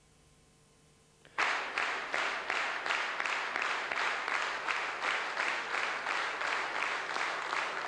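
A large hall audience bursts into applause about a second and a half in, after a brief near-silence. The clapping falls into an even, unison rhythm of about three claps a second.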